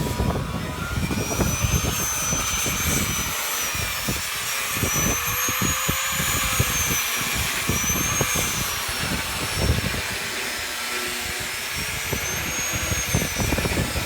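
Strong gusty wind buffeting the microphone, with a thin whistle that slowly rises and falls in pitch.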